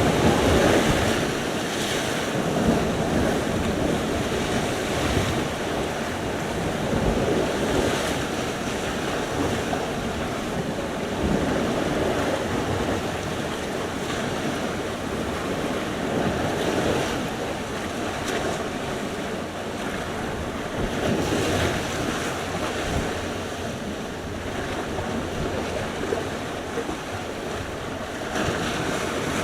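Sea surf: waves breaking and washing in one after another, the rushing noise swelling and easing every few seconds.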